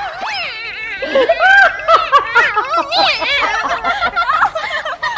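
High-pitched laughter and giggling from two young women, in quick bursts that rise and fall.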